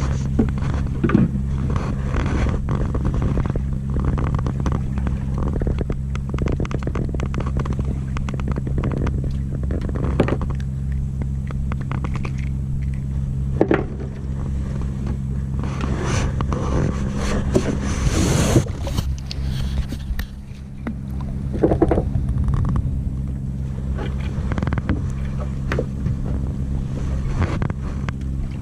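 Boat engine running steadily, with scattered knocks and scrapes over it.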